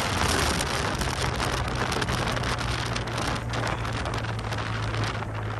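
Yamaha TMAX maxi-scooter's parallel-twin engine running at a steady cruise, under a loud, even rush of riding wind over the microphone.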